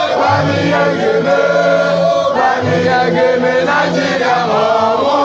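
A crowd chanting a song together in unison, many voices at once, with a short break about two and a half seconds in.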